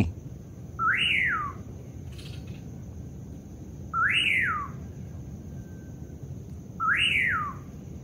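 Common pauraque giving its night call three times, about three seconds apart. Each is a whistle under a second long that rises sharply and then slides down. A faint steady high tone and a low hum lie underneath.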